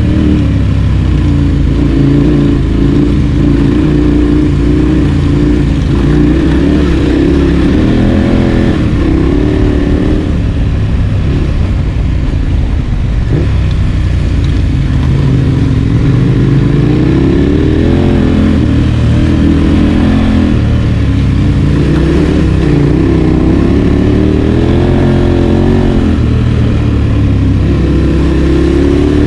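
Adventure motorcycle engine running while riding, its pitch rising and falling again and again as the throttle opens and closes, over a heavy low rumble of wind on the microphone.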